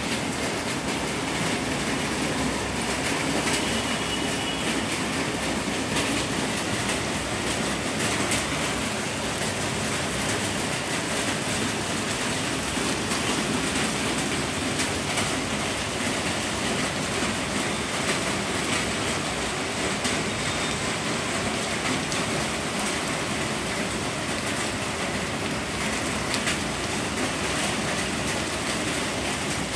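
Heavy rain falling steadily: a dense, even hiss with scattered sharp drop ticks.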